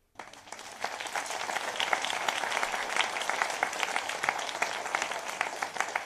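Audience applauding, many hands clapping together. It builds up over about the first second and then holds steady.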